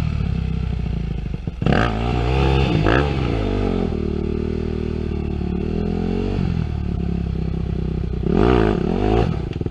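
Yamaha WR250F dirt bike's single-cylinder four-stroke engine running at low revs and revved up briefly twice, about two seconds in and again near the end.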